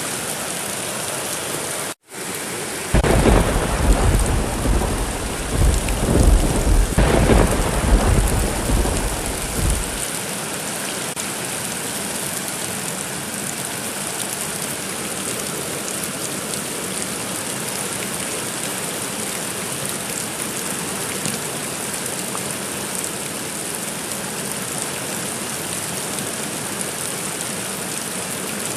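Steady heavy rain hissing, with a long rolling thunder rumble that starts about three seconds in, swells in several peaks and dies away after about seven seconds. The rain cuts out for an instant about two seconds in.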